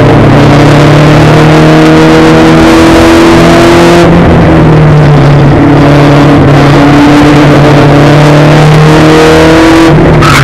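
Spec Racer Ford's engine heard from the open cockpit, running very loud at high revs, its pitch climbing under acceleration, then dropping at a gear change about four seconds in and climbing again.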